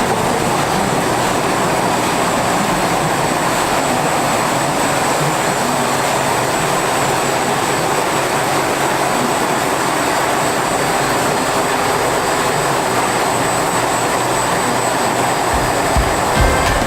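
Steady rushing machinery noise with a thin, high, constant whine above it, unchanging throughout.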